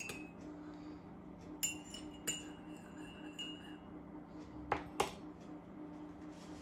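Teaspoon clinking against a cup of coffee as it is stirred: a couple of ringing taps, then two sharp knocks near the end, over a low steady hum.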